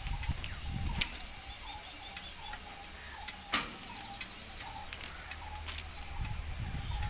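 A small fire at an overheated railway axle box, grease burning on a hot axle, crackling with irregular sharp clicks and one louder pop about three and a half seconds in. Birds chirp in the background.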